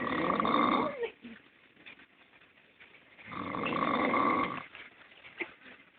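A sleeping person snoring: two long, rasping snores about three seconds apart, the first at the very start and the second a little past the middle.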